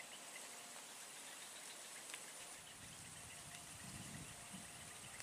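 Faint outdoor ambience by a still pond: a soft steady hiss, with a low rumble about three to four seconds in.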